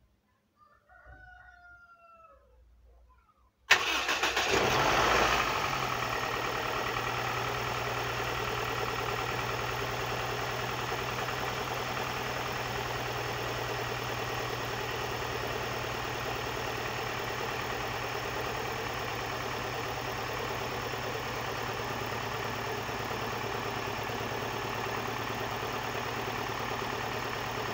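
Car petrol engine started with a replacement coolant temperature sensor fitted. It catches at once about four seconds in, runs briefly at a higher speed, then settles into a steady idle.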